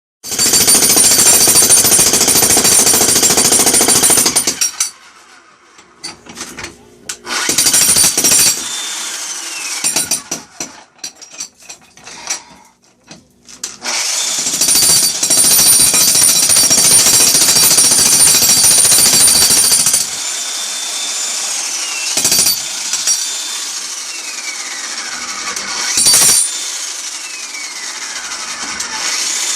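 Jackhammer hammering in bursts: a long run over the first four seconds or so, a short burst near eight seconds, another long run in the middle, then brief bursts near the end.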